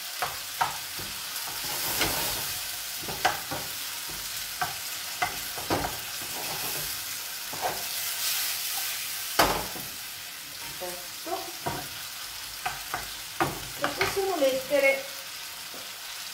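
Diced guanciale and cherry tomatoes sizzling in a frying pan while a wooden spoon stirs them, with a steady hiss and many sharp taps of the spoon and pan; one loud knock comes about nine seconds in.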